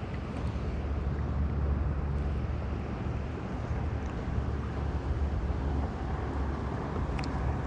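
Bass boat under way, its outboard motor running at a steady pitch under wind buffeting the microphone.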